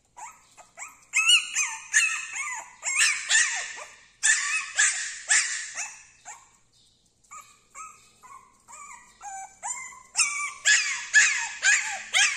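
A tiny 50-day-old male Taiwanese native (Formosan) puppy yipping and barking in quick high-pitched runs. The calls are loudest in the first half and again near the end, with softer yips in between.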